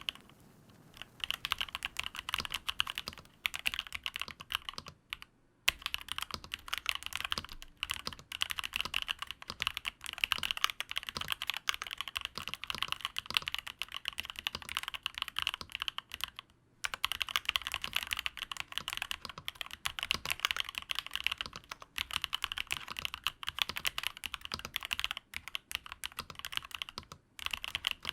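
Typing on a Nuphy Field75 mechanical keyboard: a fast, continuous run of key clicks, broken by short pauses about five, sixteen and twenty-seven seconds in.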